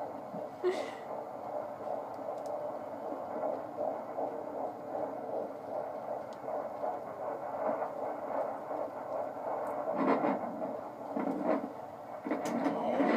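Fetal Doppler relaying a 16-week fetus's heartbeat: a fast, regular whooshing pulse in the 150s to 160s beats a minute. A few bursts of scratchy static come about ten and eleven and a half seconds in, the sign of the baby moving.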